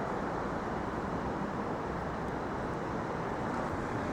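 Steady city street traffic noise, an even hum of passing vehicles.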